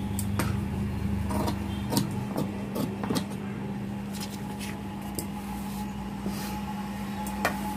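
Large paper pattern sheet being handled and shifted on a table, giving scattered short rustles and clicks over a steady low electrical hum.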